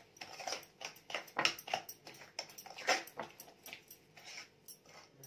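A hand utensil beating a soft mixture of yogurt, ghee and sugar in a glass bowl: irregular scraping and tapping strokes, a few a second.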